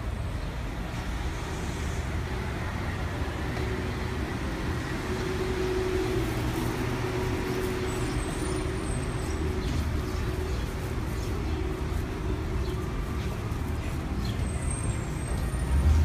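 Steady street traffic noise: the low rumble of passing cars and other motor vehicles, with a faint engine hum swelling for a few seconds midway.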